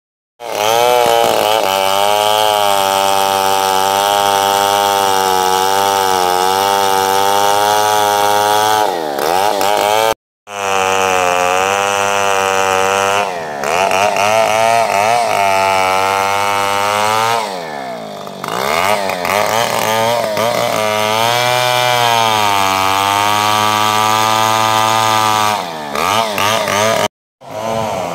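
Chainsaw felling a tree, running at high revs, its pitch sagging and recovering several times. The sound cuts out abruptly twice, about ten seconds in and near the end.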